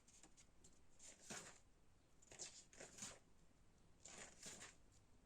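Faint rustling and swishing of paper pages being handled and turned, in several short bursts with near silence between.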